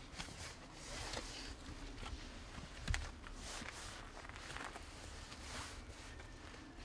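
Slow footsteps on a leaf-strewn dirt path, soft irregular steps, with one sharper knock about three seconds in.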